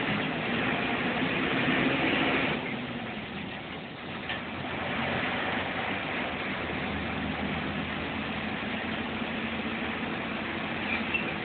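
Engine and road noise heard inside the cab of a moving heavy vehicle, louder for the first couple of seconds, then easing to a steady run.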